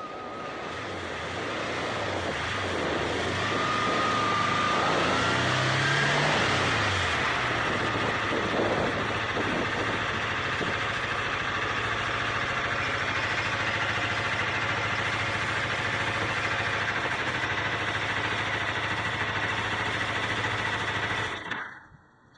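Kawasaki ZZR250 motorcycle's parallel-twin engine as the bike slows, its note bending briefly, then idling steadily. Near the end it cuts off abruptly: the engine is switched off.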